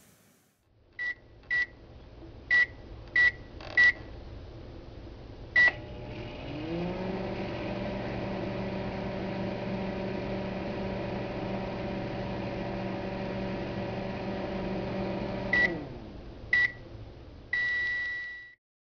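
Microwave oven being set and run: five quick keypad beeps and a start beep, then its steady running hum, which rises in pitch as it starts and winds down about nine seconds later. Two short beeps and one long beep signal that it has finished.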